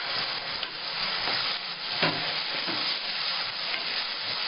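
Onion and tomato-paste masala frying in hot oil in a pan: a steady sizzle, with a spoon stirring and scraping through it.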